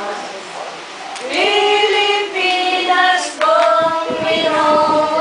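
A small group of elderly women singing together without instruments, in long held notes.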